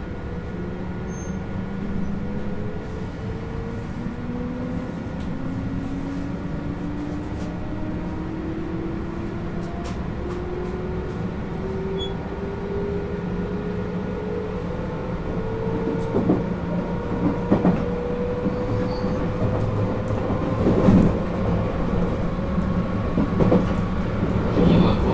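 JR West 221 series train's MT64 traction motors growling under power as the train accelerates, heard from inside a motor car: a whine climbing steadily in pitch over a steady hum. About two-thirds of the way in, rail-joint clacks and rattles join in.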